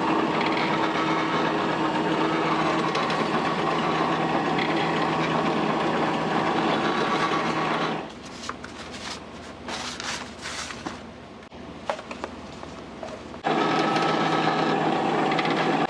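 Steady mechanical hum of a running kitchen machine. It cuts out abruptly about halfway through, leaving light clinks and knocks, then comes back on just as suddenly near the end.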